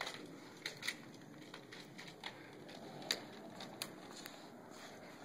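Faint scuffs and a few sharp clicks as a dog mouths and paws at a plush toy on concrete.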